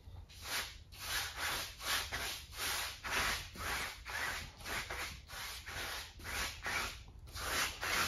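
A large round chalk brush scrubbing acrylic paint back and forth across a stretched canvas: a steady run of rough bristle strokes, about three a second.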